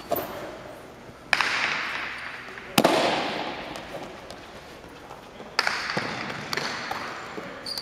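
Jai alai pelota cracking against the court walls and floor during a rally, each hit ringing out in a long echo through the enclosed court. Three loud hits come about a second and a half apart, then several lighter ones.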